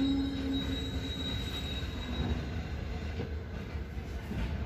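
Passenger train coach rolling slowly out of a station, heard from inside: a low rumble from the wheels on the rails, with a high wheel squeal near the start that fades away within the first couple of seconds.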